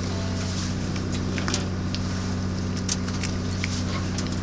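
Boat engine idling: a steady low hum, with scattered faint clicks over it.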